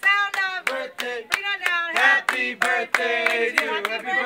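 A group of voices singing a restaurant birthday chant while clapping in time, about three claps a second.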